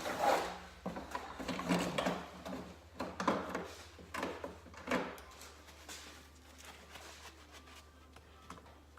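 Metal motorcycle clutch parts clicking, clinking and scraping as they are handled and pulled off the engine, busiest for about five seconds and then dying down to a few faint ticks.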